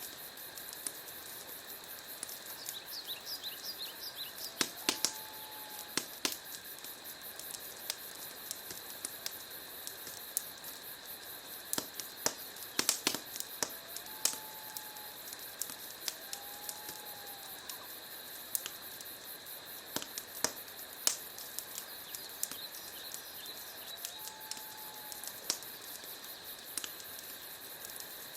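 Wood fire crackling, with irregular sharp pops and snaps over a steady hiss; the pops bunch up about 13 seconds in and again around 21 seconds. A few short whistling chirps come and go among the crackles.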